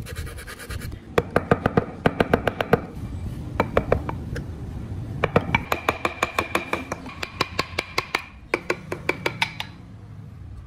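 A thin hand carving tool scoring grooves into Fokienia wood, in several quick runs of sharp scratching strokes, about seven a second, with short pauses between runs.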